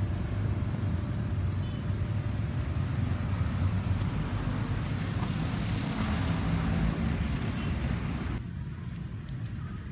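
Outdoor road-traffic noise: a steady low rumble of passing vehicles. It drops abruptly to a quieter, duller background about eight seconds in.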